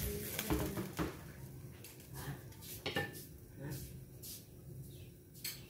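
Wooden spatula stirring and knocking against a stainless steel wok, a cluster of knocks in the first second and a few scattered clinks after.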